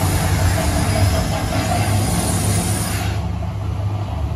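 Mirage volcano show erupting: a loud rushing hiss over a deep rumble. The hiss cuts off suddenly about three seconds in, leaving the rumble.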